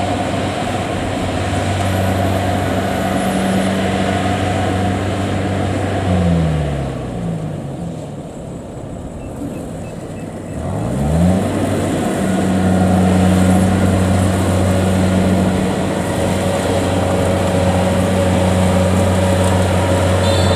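Kubota DC70 tracked combine harvester's diesel engine running hard as the machine works through deep mud. About six seconds in the revs drop away and it goes quieter, then about eleven seconds in it revs back up and runs steady again.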